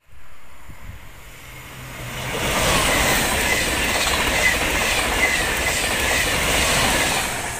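SNCF TGV Duplex double-deck high-speed train passing through. Its noise builds from about two seconds in to a loud steady rush with a regular clacking of wheels over the rails, and eases off near the end.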